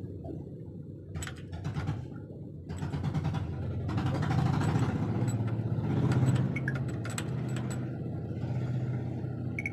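Metal clinks, taps and scraping from hand work on an eight-plunger Bosch-type inline diesel injection pump, worked with a steel rod, with a few bright metallic pings. A steady low mechanical hum runs underneath.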